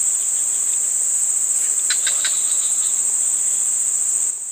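Insects droning steadily in one shrill, high-pitched tone, with a brief cluster of short sharp sounds about two seconds in. The drone drops in level just before the end.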